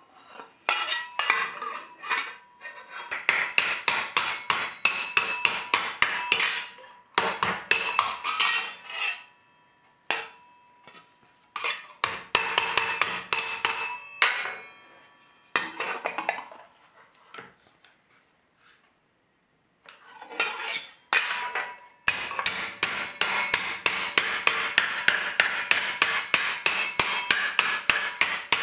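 A hammer striking a sheet of 4130 spring steel held over a rounded steel stake, bending the plate to shape. The blows come quickly, about three or four a second, in runs broken by short pauses, and each one rings like metal.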